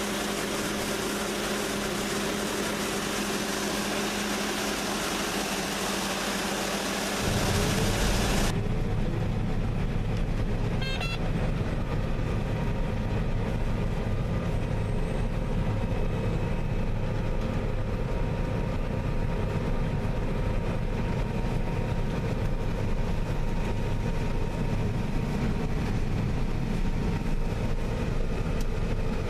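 Combine harvester running steadily during soybean harvest. About eight seconds in, a hissy, airy sound stops abruptly and a deeper, steady engine rumble takes over.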